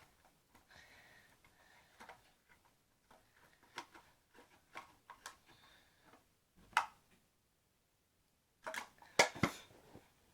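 Glue and kinetic sand being stirred together in a container: scattered light clicks and taps, one sharper tap about two-thirds of the way in, and a cluster of louder knocks near the end.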